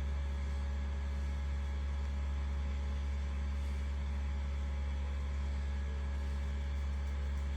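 A steady low hum, unchanging throughout, with no calls or other distinct sounds.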